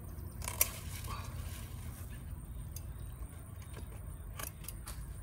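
A sunflower stalk being cut and the seed head handled: one sharp snip about half a second in, then rustling leaves, and a few light clicks near the end, over a low steady rumble.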